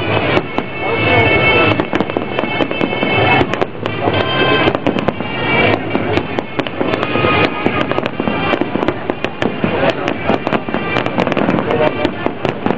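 Fireworks display with many aerial shells bursting in rapid, overlapping succession: a dense, continuous run of sharp bangs and pops.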